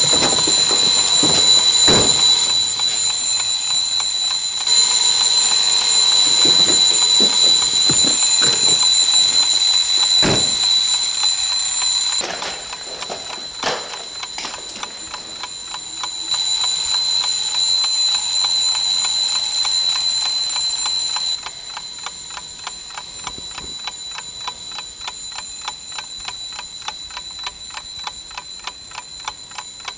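A steady, high-pitched electronic alarm-like ringing tone, loud for the first twelve seconds or so, softer briefly, then loud again, with a few thumps under it. About twenty-one seconds in the ringing drops away and a clock-like ticking remains, about two ticks a second, to the end.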